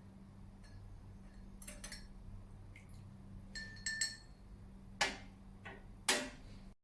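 Dishes and glassware clinking: scattered light clinks with a short ring, then two louder, sharper knocks near the end, over a low steady hum.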